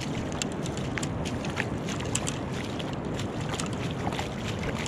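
Bare feet wading through shallow seawater, a steady sloshing dotted with small splashes and drips, with a hand splashing into the water near the end. Wind on the microphone underneath.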